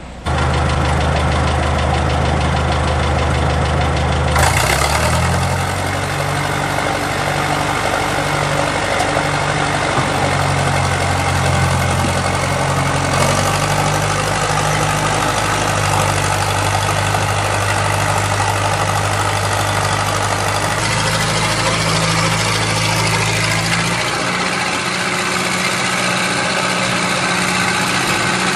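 Diesel engines of heavy earthmoving equipment, a dump truck and an old crawler loader, running steadily, the engine note changing pitch every few seconds as the machine works.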